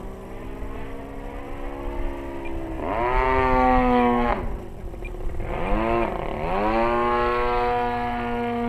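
Desert Aircraft DA-35 single-cylinder two-stroke gas engine on an RC aerobatic plane, its pitch climbing and falling with the throttle: it rises to its loudest about three seconds in, drops away sharply, dips once more, then climbs again and holds high near the end.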